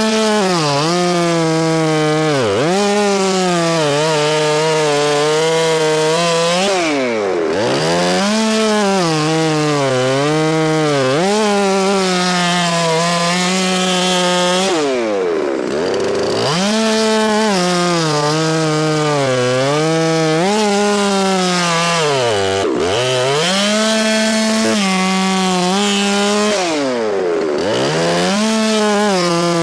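Chainsaw running at high revs while cutting through a snow-covered log into rounds. Its pitch wavers under load, and about five times it drops sharply and climbs back.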